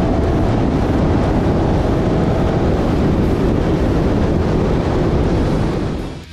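Wind rushing over a camera mounted low on a car at speed, mixed with tyre and road roar. A faint engine whine fades out in the first couple of seconds, and the whole sound fades away near the end.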